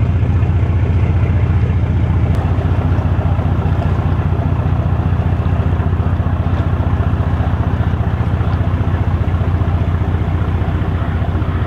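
Boat engine running steadily at low speed, a loud low drone with a fast even pulse.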